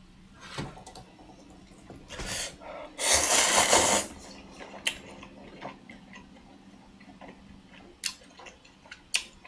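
A person slurping instant cup ramen noodles off chopsticks: one loud, wet slurp about three seconds in that lasts about a second, with a few shorter, softer slurps around it.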